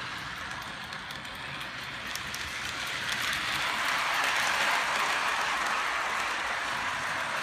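Model train running on its track: a steady rushing noise of wheels rolling on the rails, growing louder about three seconds in as the cars pass close by.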